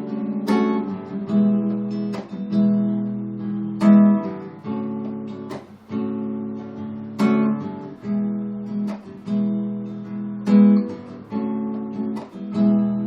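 Acoustic guitar strummed chords, a stroke roughly once a second, each chord ringing on into the next, with no singing.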